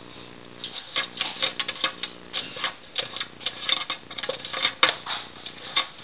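A cat pawing and nosing at a plastic wall clock, going after its moving hand: irregular quick clicks and taps, several a second, starting about half a second in.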